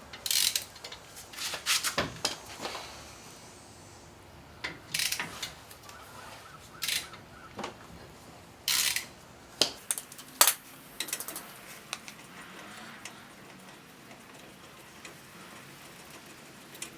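Socket wrench loosening a brake caliper bolt: short runs of ratchet clicks and metal clinks, in separate bursts with pauses between.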